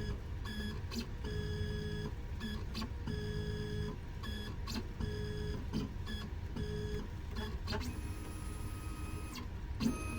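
Gymkana 994 computerized key machine decoding a laser-cut key: its motors whine in short, stop-and-start moves with clicks between them as the tracer probes the blade. Near the end the whine changes to a higher, steadier tone, with a click just before it stops.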